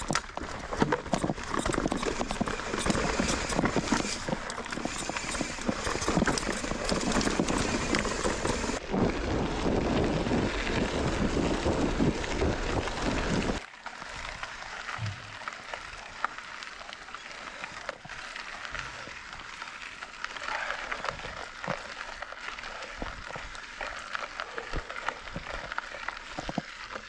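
Mountain bike riding over rough trail: dense rattling and knocking with rushing noise, which drops abruptly to a much quieter trail sound about halfway through.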